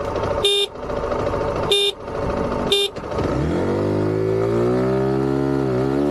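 Zontes 350T ADV's single-cylinder engine revving and pulling away from a standstill in first gear, its pitch climbing steadily from about three seconds in, with a brief dip near the end. Before that come three short, sharp high beeps over the running engine.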